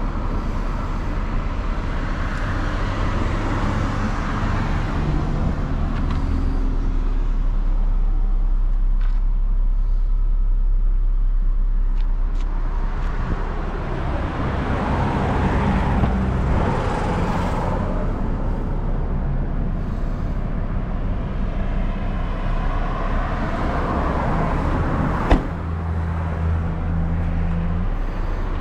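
Road traffic: vehicles drive past one after another, each swelling and fading, over a steady low hum. A single sharp click comes near the end.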